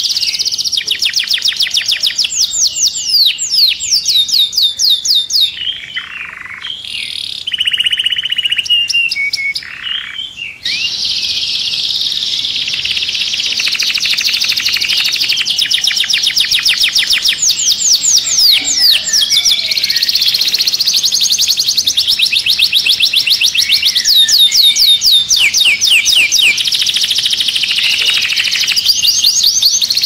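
Canary singing a loud song of fast rolling trills: rapid runs of repeated down-sweeping notes. About a third of the way in, a few slower, longer held notes break in, then the trilling runs on without a pause.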